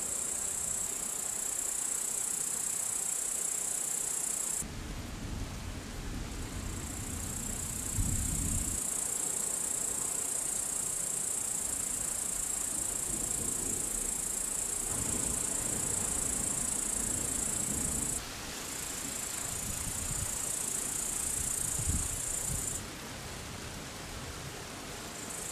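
Crickets trilling in a steady high-pitched drone, with low rumbles of distant thunder rolling in three times. The trilling cuts off abruptly about four seconds in and again near the end.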